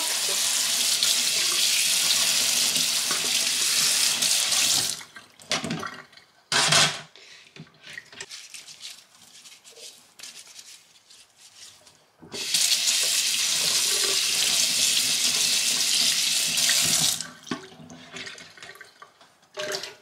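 Kitchen faucet water splashing over plastic dishwasher filter parts in a stainless steel sink, in two spells of about five seconds: one at the start and one starting past the middle. Between them, quieter wiping and handling of the filter with a cloth.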